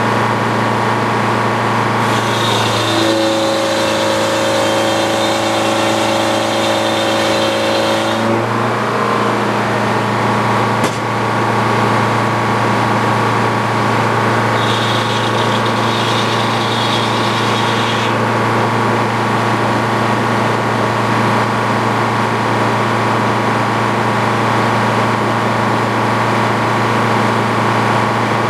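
Antique Frick sawmill running: a steady engine drone, with a higher whine over it twice, once for about six seconds and later for about three, and a single sharp click about eleven seconds in.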